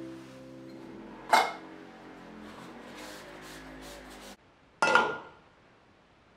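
Small aluminium pudding molds clinking as they are set down and stacked on a glass tabletop: one sharp ringing clink about a second in, then a double clink near the end. Soft plucked-string background music runs under the first part and cuts off suddenly before the second clink.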